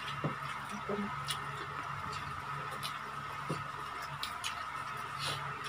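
People eating with their hands: scattered soft clicks and small sounds of fingers picking at fried chicken and rice, over a steady background hum.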